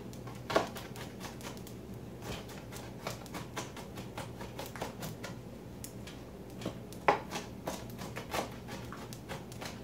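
A kitchen knife rough-chopping a yellow onion on a cutting board: irregular quick taps of the blade on the board, with a few sharper knocks.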